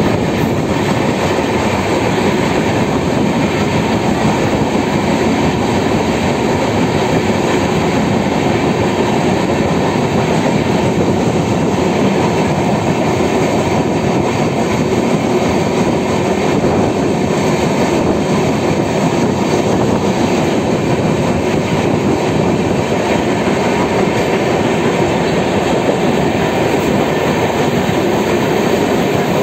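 Passenger express train running through a station without stopping, its coaches passing close by at speed: a steady, loud roar of steel wheels rolling on the rails with clickety-clack over the rail joints.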